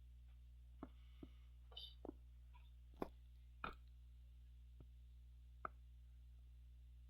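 Computer mouse clicking irregularly, about eight short clicks spread over five seconds, over a steady low hum.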